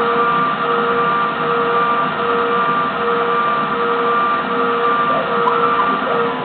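Homemade CNC lathe running a facing cut on 19 mm aluminium bar: the spindle, driven by a 0.75 kW motor on a VFD, turns while the tool cuts across the bar's end. A steady machine whine pulses on and off about one and a half times a second over the running noise.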